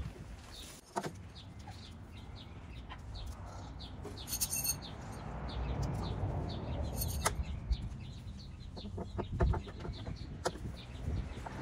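Hens clucking repeatedly in the background, with a few sharp clinks of metal trellis rods and rings knocking together as they are fitted.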